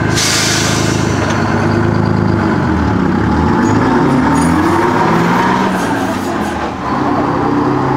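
Engine of vintage vicinal railcar AR.86 running, its pitch wavering and changing as the railcar pulls away along the track, with a short hiss of air at the start.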